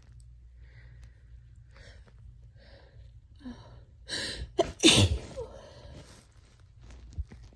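A person with a cold sneezing once after a breathy build-up. Several short, catching breaths grow louder over about three seconds, then comes one loud sneeze about four to five seconds in, followed by a softer breath out.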